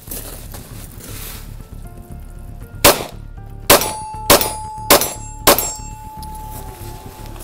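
Five shots from a 9mm Glock 17 pistol that has just been thawed with water after freezing: one shot, then four more in quick succession about half a second apart. A metallic ringing tone comes in with the second shot and fades out after the last.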